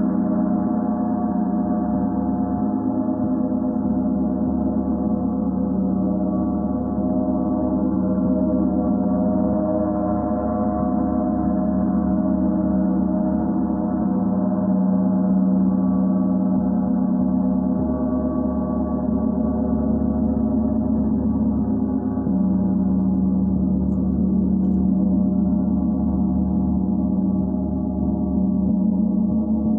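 Large symphonic gong played continuously with padded mallets, its strokes blending into a dense, steady wash of many overlapping tones that never dies away.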